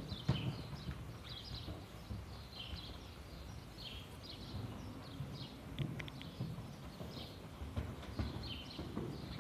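Hoofbeats of a ridden horse cantering on the sand footing of an indoor arena: a run of dull, muffled thuds. Small birds chirp high above it.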